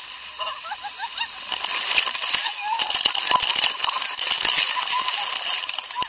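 Waterfall's falling water: a loud, steady hiss with a crackle of splashes, growing louder about one and a half seconds in. Faint voices are heard over it.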